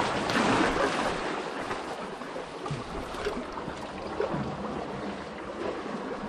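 Seawater washing and trickling between shoreline boulders, a steady rushing that eases slightly after the first second or so, with a few faint knocks.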